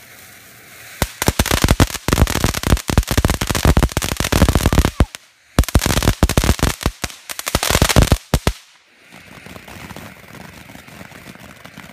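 Ground fountain firework going off with dense, rapid crackling: many sharp cracks in quick succession. The crackling breaks off briefly about five seconds in, then stops about eight and a half seconds in, leaving a softer hiss.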